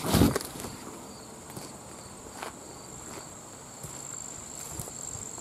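A steady, high-pitched insect trill, with a thump at the very start and a few faint clicks.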